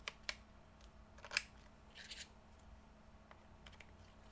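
Small hard clicks from handling computer parts: three sharp clicks in the first second and a half, the third the loudest, then a brief light rustle about two seconds in.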